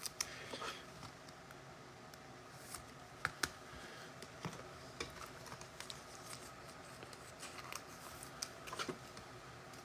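Trading cards and packs being handled on a table: faint scattered clicks and light scrapes over a low hiss.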